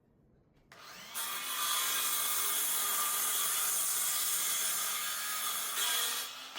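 A power tool spinning up about a second in, running steadily at full speed for about five seconds, then stopping.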